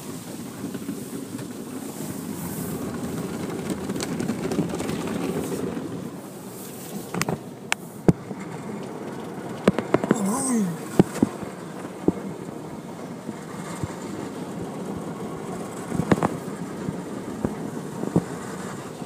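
Automatic car wash heard from inside the car: a steady rush of water spray and cloth brushes washing over the body, with scattered knocks as the brushes and wash equipment strike the car. A brief falling tone sounds about halfway through.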